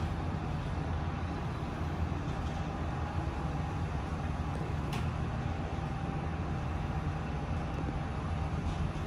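Otis Gen2 Regen MR elevator car travelling upward at its full rated speed of 105 m/min: a steady low rumble and hum of the moving car, with a faint whine. One short tick comes about five seconds in.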